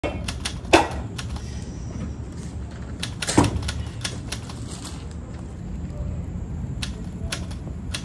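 Small wood campfire crackling: irregular sharp pops and snaps, with two louder pops just under a second in and about three and a half seconds in, over a low steady rumble.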